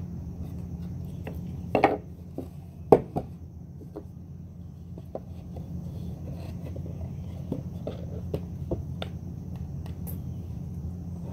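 Wooden planter-box boards being handled and pressed together by hand: scattered light knocks and scrapes, the sharpest a knock about three seconds in. A steady low hum lies underneath.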